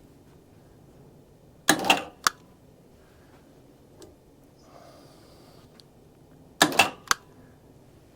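Log-turning winch on the sawmill clicking in two short clattering bursts a few seconds apart, each ending in one sharp click, as the strap is pulled to roll the log.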